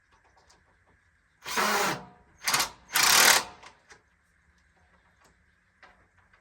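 Cordless impact driver running in three short bursts, driving screws into the rocking chair's parts just far enough to get a bite before they are hand-tightened.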